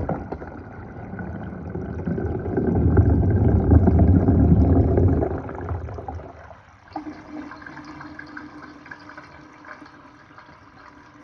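Water rushing in a sink. It swells to its loudest a few seconds in and dies away after about six seconds, leaving a faint steady background.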